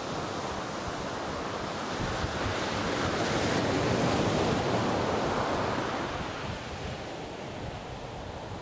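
Ocean surf washing onto a sandy beach, swelling to a peak about halfway through and easing off again, with wind buffeting the microphone.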